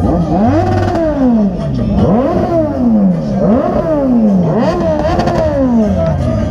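Motorcycle engine being revved over and over, about five throttle blips, each pitch rising quickly and sinking back more slowly, roughly every second and a half.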